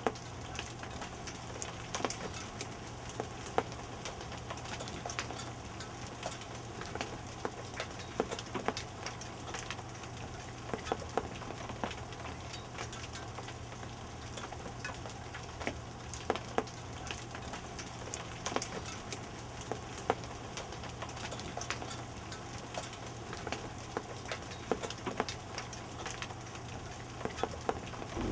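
Light rain falling after a hailstorm: a steady pattering hiss with scattered sharp ticks of drops and small hailstones landing, over a low steady hum.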